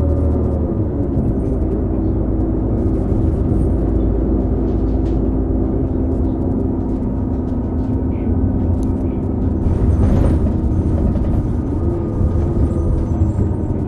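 2018 New Flyer XD40 transit bus running, its Cummins L9 diesel and Allison B3400xFE transmission giving a low rumble and a steady whine whose pitch dips about a second in and rises again near the end. The whine is an odd transmission-bearing sound, an issue shared by several buses of this series.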